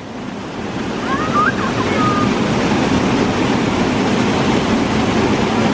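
Waterfall: a steady rush of falling water, growing a little louder over the first second and then holding even.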